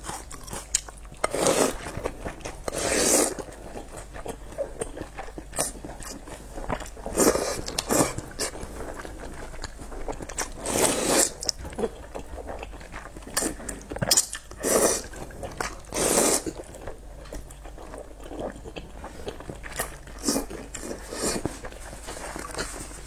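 A person eating pork noodles close to the microphone: steady chewing and wet mouth sounds, broken every few seconds by short, louder bursts of eating noise.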